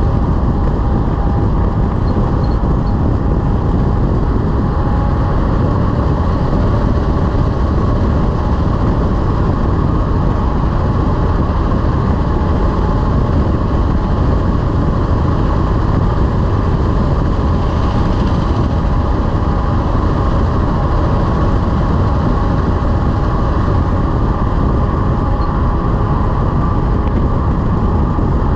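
Heavy-haul semi-truck running down the road, a loud, steady low rumble of engine and road noise.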